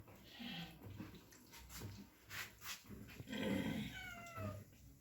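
Domestic cat meowing once, a drawn-out call that falls slightly in pitch, about three and a half seconds in.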